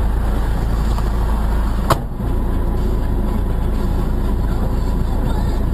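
Steady car road and engine noise as heard by a dashcam inside the moving car, with a single sharp click or knock about two seconds in.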